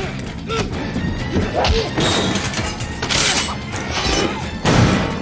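Movie fight sound effects over an action score: blows and crashes of metal pots and pans, about four hits, the loudest near the end.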